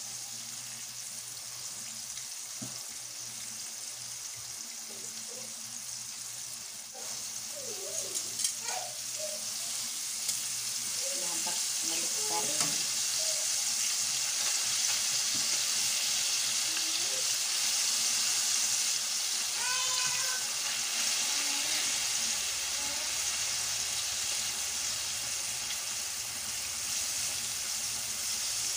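Pork pieces coated in egg and cornstarch sizzling as they deep-fry in oil in a non-stick wok. The sizzle swells about seven seconds in and stays louder, and metal tongs click and scrape against the pan as the pieces are turned.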